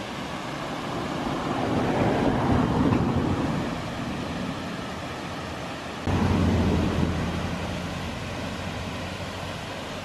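Steady rushing of a waterfall heard from above it. The rush swells about two seconds in and jumps louder at about six seconds, when a low hum joins it, then eases off.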